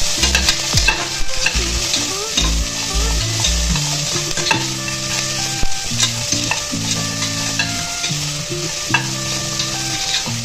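Sliced onions sizzling as they fry in hot ghee and oil in a pressure cooker, while a metal slotted spatula stirs them and scrapes along the bottom of the pot with small clicks. The onions are at an early stage of being sautéed until golden.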